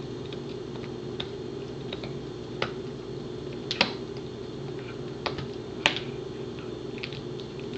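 Pembroke Welsh Corgi gnawing a hard Himalayan cheese chew: scattered sharp clicks of teeth cracking on the hard stick, about five of them, the loudest near the middle, over a steady low hum.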